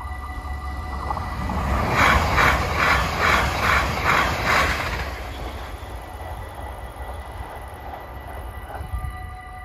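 NS Sprinter electric multiple unit passing close by at a level crossing. Its wheels clack over the rail joints in a quick, even run of about seven beats, two to three a second, loudest a couple of seconds in, before it fades to a low rumble. Level-crossing warning tones ring steadily at the very start.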